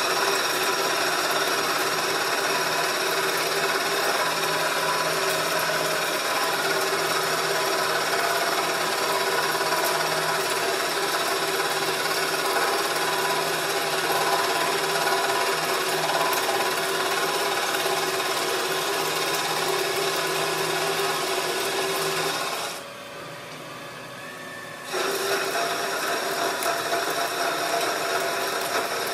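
Metal lathe cutting a steel bar under water-based coolant: a steady machining whir with a motor whine. It drops away for about two seconds near the end, then resumes.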